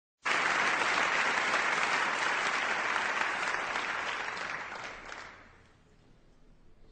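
Theatre audience applauding, the clapping fading away about five seconds in.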